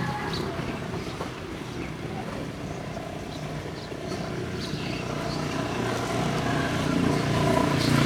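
A motor running steadily with a low hum, growing louder over the second half, with a few small clicks.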